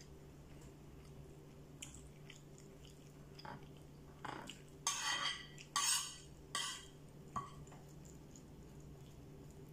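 Eating at a plate: a metal spoon scraping and clinking on the plate in a run of short strokes about four to seven seconds in, with a few lighter taps before and after.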